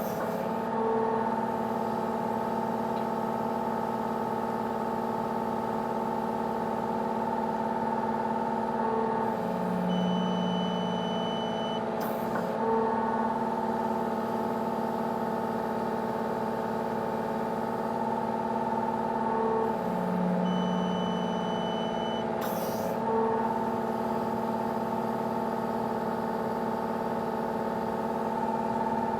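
Excavator diesel engine running steadily, held at about 2200 rpm. A short beep sounds twice, about ten seconds apart, and a sharp click follows each one.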